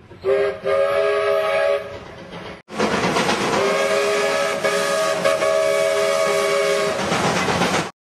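Steam locomotive's chime whistle blown twice, several notes sounding together: a short blast of about a second and a half, then after a brief break a long blast of about five seconds, with the noise of the running train underneath.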